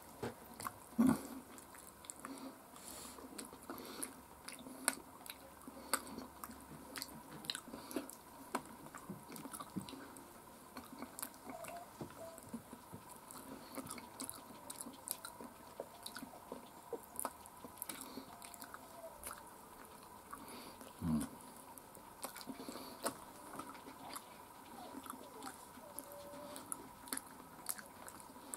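Close-mic'd chewing and biting of fried chicken pieces, with many small wet mouth clicks and crisp crackles. There are two louder low sounds, about a second in and about two-thirds of the way through.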